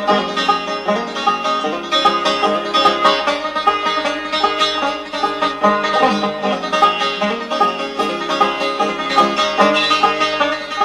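Instrumental music of quick, steady plucked-string notes, with no singing.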